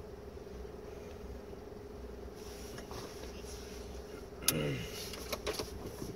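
Truck idling, heard inside the cab as a steady low rumble and hum. About two-thirds of the way through, a sharp click and a brief voice sound are followed by a few lighter clicks.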